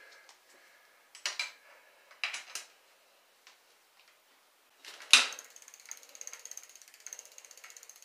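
Mountain-bike rear wheel spun by hand: a few light knocks, then a sharp knock about five seconds in, after which the rear hub's freewheel pawls click rapidly and evenly as the wheel coasts.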